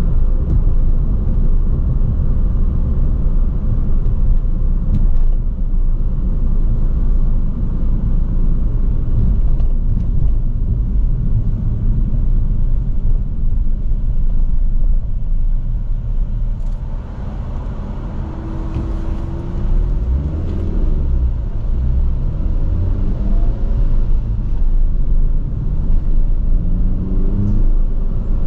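A small, loud sports car driving, its engine and road noise making a steady low rumble. After a brief easing off around two-thirds of the way through, the engine note rises in pitch several times as the car picks up speed.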